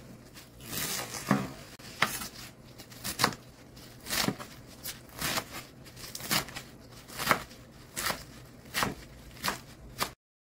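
Chef's knife chopping water spinach on a wooden cutting board: the blade cuts through crisp stems and leaves and knocks sharply on the board roughly once a second.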